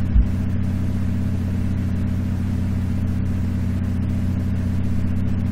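Steady low hum with a faint hiss behind it, and one short low thump just after the start.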